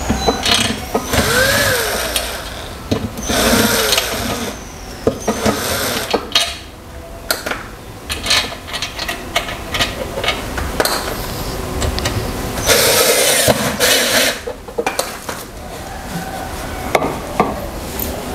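Cordless drill driving bolts to fasten the seat to a metal-framed dining chair, in several short runs that rise and fall in pitch, with clicks and knocks from handling the chair parts between them.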